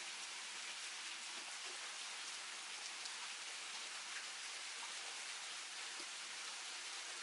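Steady rain: an even hiss with a few faint drop ticks.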